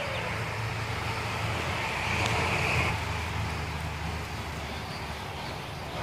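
Low, steady rumble of distant road traffic, swelling briefly about two to three seconds in as a vehicle passes.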